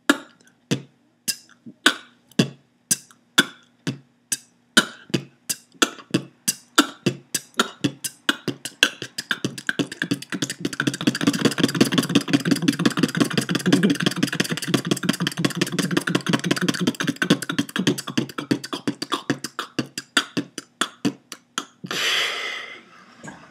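Beatboxer repeating a bass kick, hi-hat and outward-K rim shot pattern (B t K), starting slowly at about two strokes a second and speeding up until the strokes run together very fast. It ends with a short hissing burst near the end.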